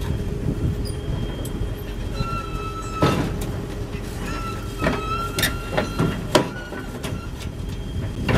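Caterpillar tracked excavator's diesel engine running with a steady low rumble as the machine shifts on a steel trailer ramp. Sharp metal clanks come several times, and a high squeal starts about two seconds in and returns around five seconds in.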